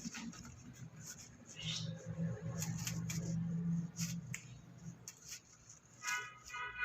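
Light, scattered clicking and scratching of a pet Alexandrine parrot's beak and claws as it plays, with a low hum in the middle. A short pitched tone starts near the end.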